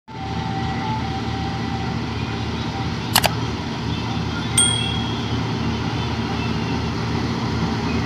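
Combine harvester running steadily with a low drone. Two sharp clicks come about three seconds in, then a metallic clink with a brief ring about a second and a half later.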